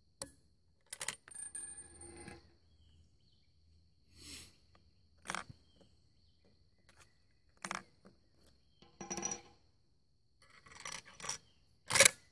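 Metallic clicks and clinks of a Remington 722 rifle's bolt action being worked by hand, with brass cartridge cases clinking and a sharp click near the end.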